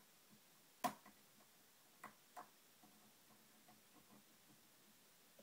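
Faint clicking of a lock pick working the pins of a TrioVing oval pin-tumbler cylinder: one sharper click about a second in, two more about two seconds in, and light ticks between.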